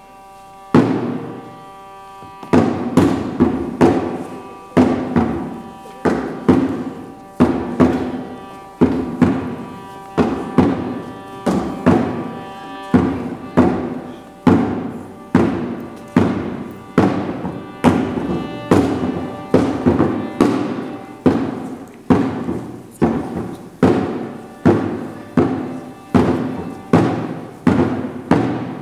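Performance music built on a steady, repeated drum beat, about one to two strokes a second, starting about a second in after a held note.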